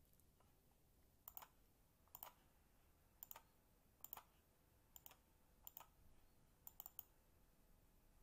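Faint computer mouse clicks: about eight of them, each a quick double tick of button press and release, spaced roughly a second apart over a near-silent room.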